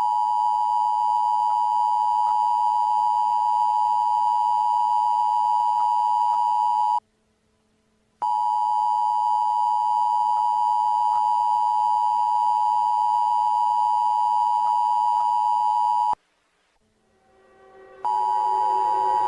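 Emergency Alert System two-tone attention signal: a steady, loud dual tone that stops about seven seconds in, returns after a second's gap for about eight seconds, and starts again near the end after a short pause.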